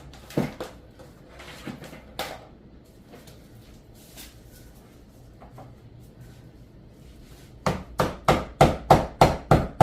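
A hammer knocking laminate flooring planks to lock the joints tight: a few scattered knocks, then from about three-quarters of the way in a fast run of sharp strikes, about three a second.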